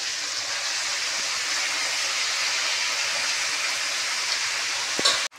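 Steady sizzling of hot oil in an aluminium kadhai as handfuls of chopped fenugreek leaves are dropped onto frying potatoes. A single knock near the end, then the sound cuts off abruptly.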